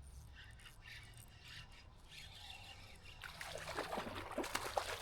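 Water splashing and dribbling close to the microphone, light at first and becoming a busy run of splashes from about three seconds in.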